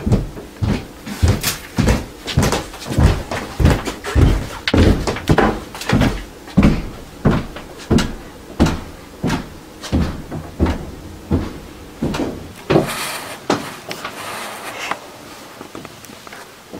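A steady run of heavy thumps or knocks, nearly two a second, that grow weaker after about twelve seconds, followed by a brief rushing noise.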